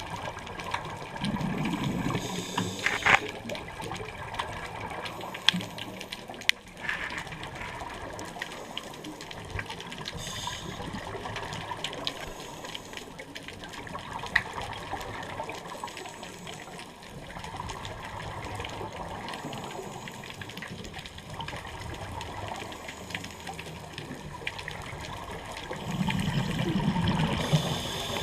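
Underwater sound on a scuba dive: a diver's regulator exhaust bubbles gurgle in two louder spells, one near the start and one near the end, over a steady hiss with scattered sharp clicks.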